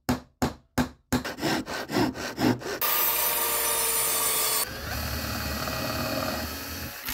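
Woodworking tool sounds on wood: a few sharp knocks about three a second, then quicker stroke-by-stroke sawing. From about three seconds in comes a dense, steady noise that changes about five seconds in and cuts off suddenly at the end.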